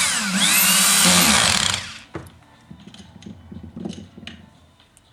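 High-speed electric power tool running, its pitch dipping under load and picking up again, then cutting off about two seconds in. Light clicks and knocks of handling follow.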